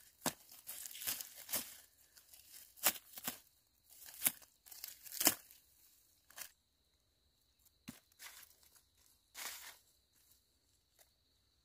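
Hands pulling weeds up by the roots from dry soil among dry leaves and stalks: short crisp bursts of tearing, rustling and crackling, close together at first and thinning out after about six seconds.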